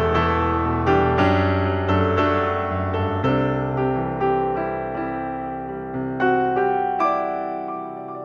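Background piano music: a slow, gentle piece of single struck notes over held chords, fading out near the end.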